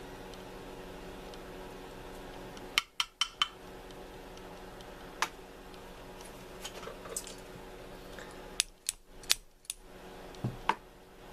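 Sharp metallic clicks and clinks of small tubular-lock parts being worked apart by hand: a quick run of four clicks about three seconds in, a few single clicks after, and another cluster of clicks near the end.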